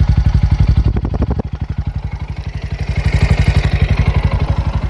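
Bajaj Pulsar NS125 single-cylinder engine idling steadily, heard close to the exhaust. It is louder again from about three seconds in. The engine carries a 'kit kit' tick, which the service mechanic put down to a tappet problem.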